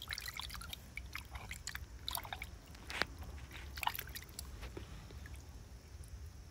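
A hand swishing and rubbing a small plastic toy in a shallow plastic tub of water: light splashing and sloshing with small clicks, dying down near the end as the toy is lifted out.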